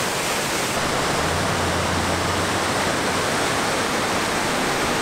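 Steady rush of a large, multi-tiered mountain waterfall (Tangle Creek Falls) cascading over rock ledges: a loud, even wash of falling water.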